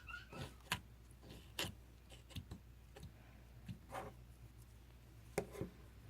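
Scattered light clicks and taps at an irregular pace, three of them sharper than the rest.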